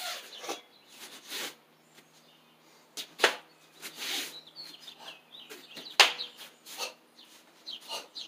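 Clothing and limbs swishing through the air as karate kata strikes and kicks are thrown at speed, with two sharp slaps, about three seconds in and about six seconds in.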